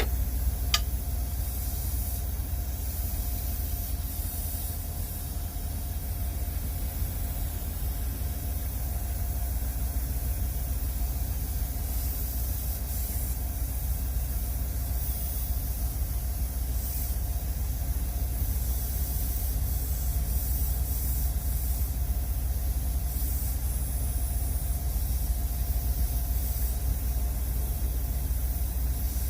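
Semi-truck idling steadily, with a steady high hiss over the low rumble and a single click about a second in.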